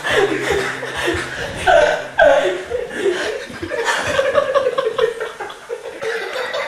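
A young man laughing and chuckling in repeated bursts.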